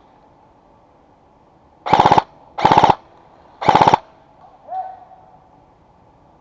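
Airsoft gun firing three short full-auto bursts of rapid shots, each about a third of a second long and about a second apart. A short, fainter rising tone follows about a second after the last burst.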